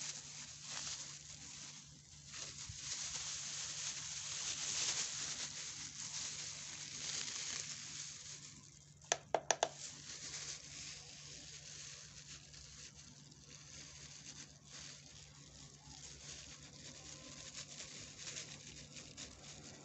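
Rustling, crinkling noise, with four quick sharp clicks about nine seconds in, then softer rustling.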